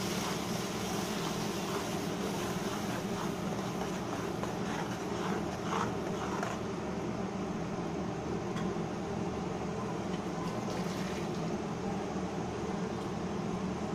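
Curd and spice masala cooking in a kadai, a spatula stirring and scraping through it in short strokes for about the first six seconds. A steady mechanical hum runs underneath throughout.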